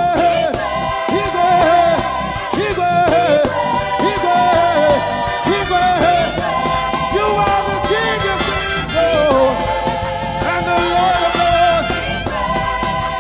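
Live gospel praise band playing an upbeat song with a steady beat, with voices singing along.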